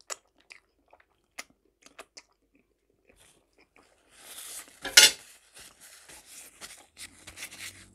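Chewing and finger-licking with scattered sharp, wet mouth clicks, then a paper napkin rustling and crinkling as greasy hands are wiped with it. The napkin is loudest in one sharp crackle about five seconds in.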